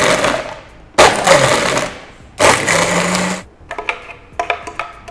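JTC heavy-duty blender crushing ice into a mocha frappe, heard as three loud bursts of about a second each. Near the end comes a run of small knocks and scrapes as the thick frappe is poured from the jar into a plastic cup.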